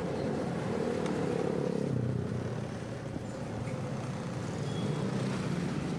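Street traffic of motor scooters and motorcycles running past with a steady engine hum; the engine note drops lower about two seconds in.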